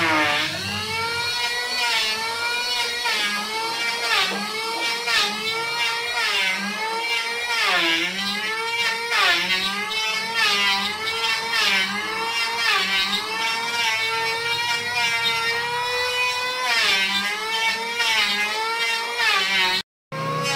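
Handheld electric die grinder with a burr bit grinding into a sonokeling rosewood slab, its high motor whine dropping in pitch about once a second as the bit bites into the wood and then picking back up. The whine cuts off abruptly near the end.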